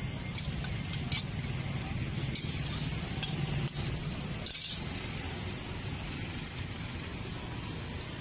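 A metal spatula scraping and clinking against a wok as cooked food is pushed out of it, a few short scrapes and clinks mostly in the first half, over a steady low rumble.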